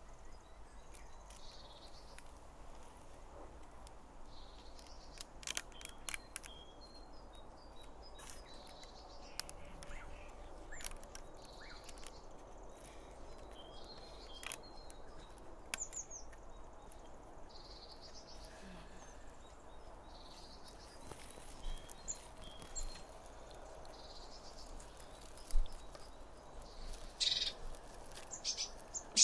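Birds chirping over a quiet forest background, with scattered light clicks and knocks of wooden sticks being handled and lashed together with cord; a few louder knocks near the end.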